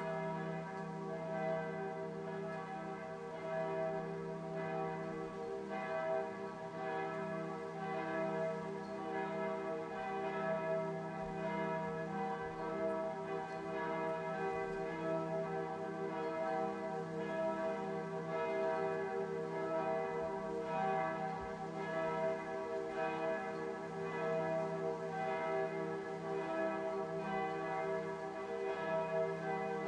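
Church bells of Cologne Cathedral pealing: several bells strike over and over, and their tones ring on and overlap in a steady wash.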